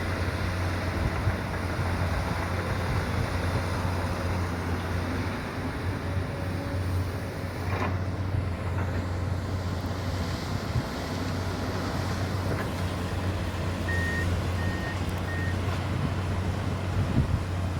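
Komatsu PC200 hydraulic excavator's diesel engine running steadily. Near the end there are three short high beeps from a warning beeper.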